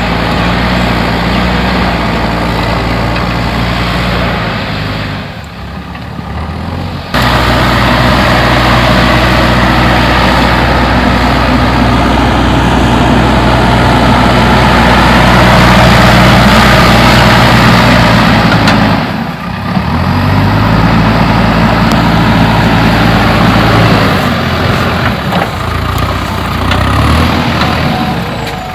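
Diesel engine of a JCB 3DX backhoe loader running at work, steady for long stretches. The engine sound drops away briefly about five seconds in, returning abruptly at about seven seconds, and dips again at about nineteen seconds before picking up.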